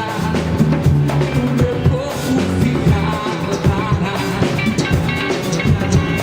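Live band playing an upbeat song, with drum kit keeping a steady beat under repeating low bass notes.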